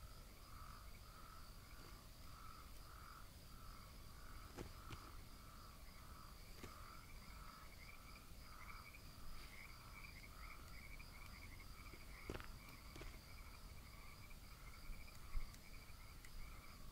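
Faint night chorus: frogs calling in an even rhythm of about two pulses a second, over a steady high insect trill, with a few faint clicks.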